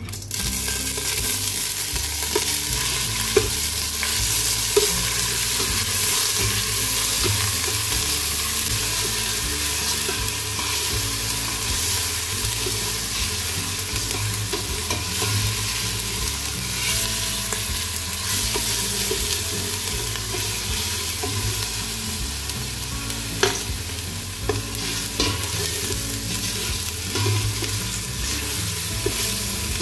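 Blended ginger, shallot and garlic paste sizzling in hot oil in a stainless steel pot, stirred with a metal ladle that scrapes and clinks against the pot now and then.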